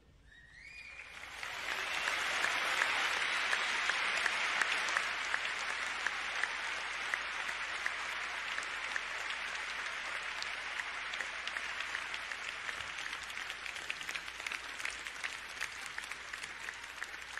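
A large arena audience applauding, swelling over the first two seconds and then slowly thinning, with a couple of rising whistles right at the start.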